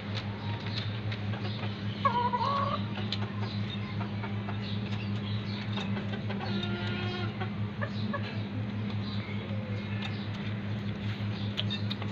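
Chickens clucking in a wooden coop, with one louder call about two seconds in and a quick run of repeated clucks a little past the middle. A steady low hum runs underneath.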